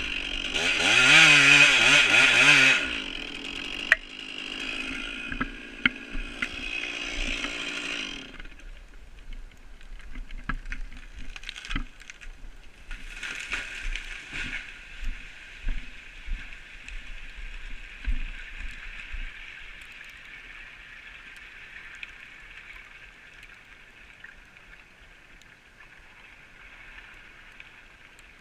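Stihl MS 461 chainsaw revving high in the cut, then running lower and shutting off about eight seconds in. A run of sharp cracks and thuds follows for about ten seconds as the felled Douglas fir goes over and crashes down the slope, fading away over a steady high hiss.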